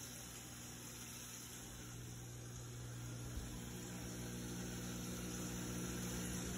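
Steady low hum with a faint hiss, growing slightly louder, with one small click about three and a half seconds in: kitchen room tone.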